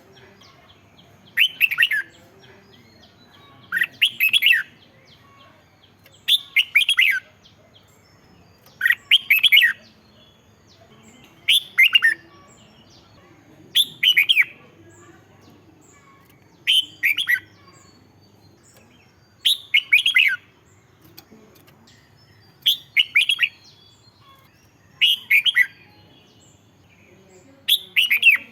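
Red-whiskered bulbul singing: short, quick whistled phrases, eleven of them, each under a second and repeated about every two and a half seconds.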